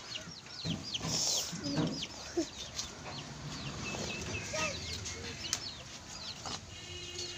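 Birds chirping: a steady run of short, high, falling chirps, several a second.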